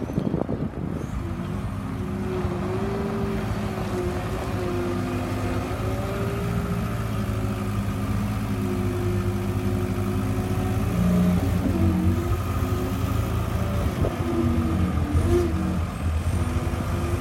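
2006 Case 420 skid-steer's diesel engine running steadily. It gets a little louder and shifts in pitch about eleven seconds in, and again briefly near the end.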